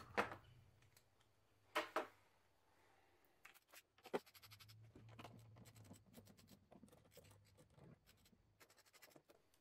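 Faint hand-tool noise: a knock about two seconds in, then a long run of quick clicks and scrapes as a ratchet with an 8 mm socket loosens the bolts of the hose clamp brackets.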